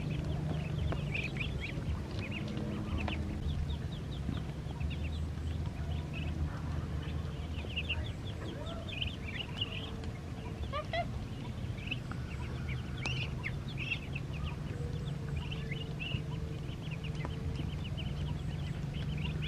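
A flock of Muscovy ducklings peeping continuously, many short high chirps overlapping, while they feed from a tray, with a steady low hum underneath.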